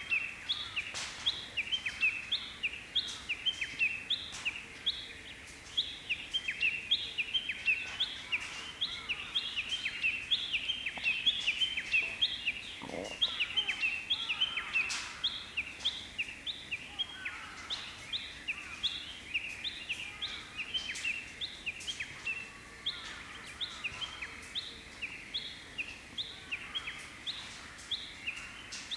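Birdsong: short, sharp chirping notes repeated rapidly and without pause, about three a second, over faint outdoor background noise.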